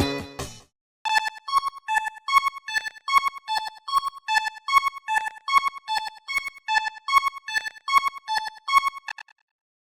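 Electronic railroad crossing warning bell ringing, alternating between two pitches at a little under three strikes a second, stopping abruptly near the end. A music tail fades out at the very start.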